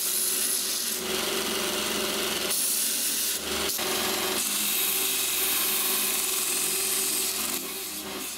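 DWT DS-350 GS bench grinder running with a belt sander attachment while a small steel mounting plate is pressed against the sanding belt: a steady motor hum under a rasping grind, broken by a few brief gaps as the piece is shifted. The grinding eases off near the end.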